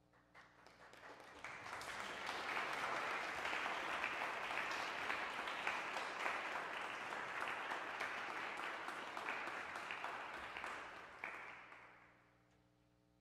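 Audience applauding. The clapping builds over the first couple of seconds, holds steady, then dies away near the end.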